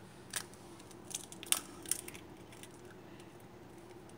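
An egg being cracked into a bowl: a few sharp taps and crunches of shell, the loudest about a second and a half in, over a faint steady hum.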